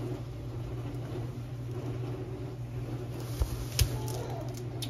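Washing soda powder poured from a cardboard box into a plastic measuring cup, a soft pouring hiss over a steady low hum, then a couple of knocks a little after three seconds in as the box and cup are handled.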